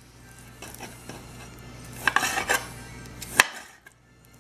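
Chef's knife slicing raw chicken breast on a glass cutting board, the blade scraping and tapping against the glass, with one sharp loud click near the end.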